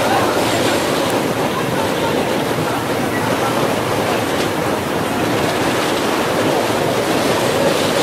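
Sea surf washing and wind blowing over the microphone, a steady, even rush of noise.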